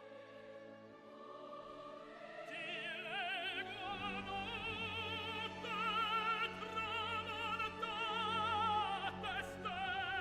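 Opera recording with orchestra: a singer with strong vibrato comes in a couple of seconds in and the music grows louder.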